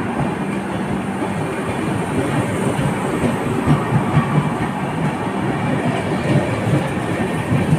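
Passenger coaches of a departing express train rolling past close by: a steady rumble with the clickety-clack of wheels over rail joints, and a quick run of heavier thumps about four seconds in.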